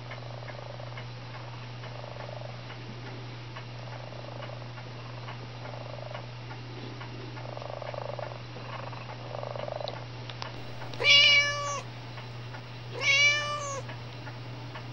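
Domestic cat meowing twice near the end: two short, level-pitched meows about two seconds apart, over a steady low hum.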